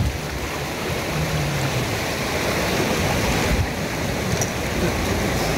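Steady rush of sea surf, with wind buffeting the microphone.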